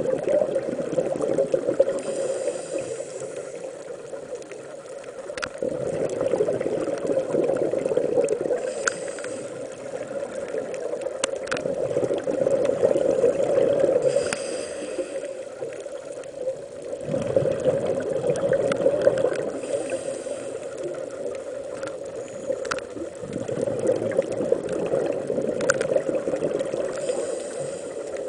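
Scuba diver's breathing heard underwater: rushing, bubbling exhalations through the regulator swell up about every six seconds, five times in all, with short high hisses between them.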